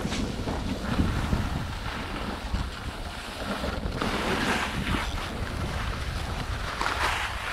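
Wind rushing over the microphone during a fast descent on snow, with the scraping hiss of edges carving across the snow coming in swells, strongest about four and a half and seven seconds in.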